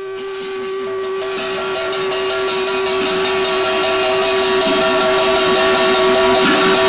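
A single steady, pitched tone held unbroken over a fast, even clatter and a noisy background, all fading in at the start.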